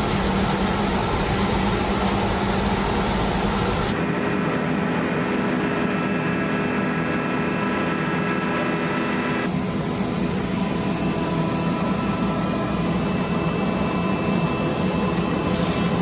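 Grizzly G1033X 20-inch spiral-head planer running with its dust collector while walnut boards are planed: a steady, even machine noise. Its character changes abruptly about four seconds in and again about nine and a half seconds in.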